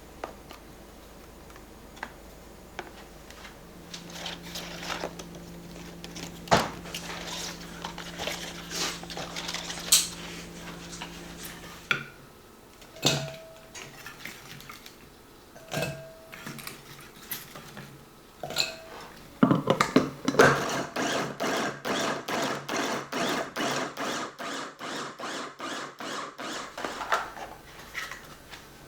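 Electric food chopper run in short pulses, about two a second for several seconds, chopping food in its bowl. Before that come scattered clicks and knocks of containers being handled, and a steady low hum for several seconds.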